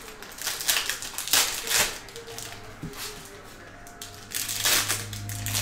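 Stiff chromium trading cards sliding and scraping against each other as they are flipped through a stack by hand, in a few quick rustling bursts. A low steady hum comes in near the end.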